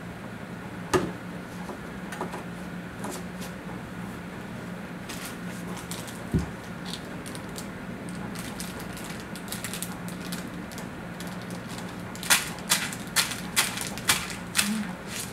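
Crinkling and crackling of a thin clear plastic rice-cracker wrapper in a baby's hands: a few scattered clicks and one soft knock in the first half, then a quick run of sharp crackles near the end.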